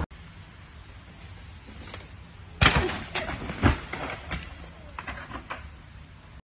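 A sharp knock about two and a half seconds in, followed by several lighter knocks and clicks, over a faint steady background.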